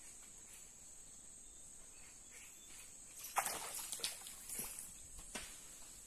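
Steady high-pitched drone of insects, with a cluster of sharp splashes and knocks about halfway through.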